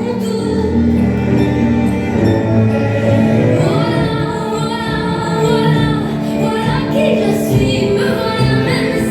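Music with singing: sustained sung notes over an accompaniment.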